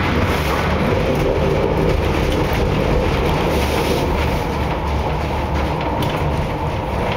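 La Coudre–Chaumont funicular car running along its track: a steady rumble of steel wheels on the rails, with a few faint, irregular clicks.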